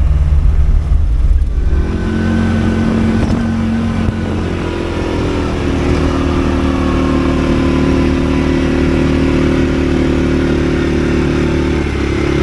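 Farm vehicle's engine running; about two seconds in it picks up from low revs to higher revs and then holds steady as the vehicle drives along.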